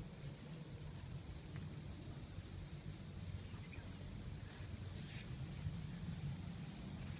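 Steady high-pitched insect chorus, an even unbroken hiss, with a low rumble underneath.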